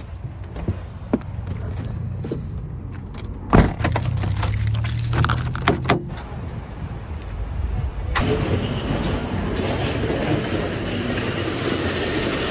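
A camper van (Fiat Ducato) being left and locked: handling at the cab door and a door shutting with a sharp thud about three and a half seconds in, with keys jangling and a few clicks. About eight seconds in, a steady rushing background noise of the supermarket entrance sets in suddenly.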